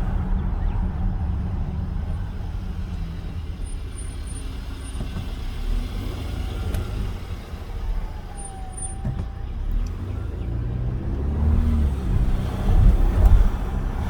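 2020 Volvo XC90 driving, with a steady low rumble of road and running noise that swells near the end. A faint short whine, falling slightly, sounds about midway, along with a few faint thin high tones.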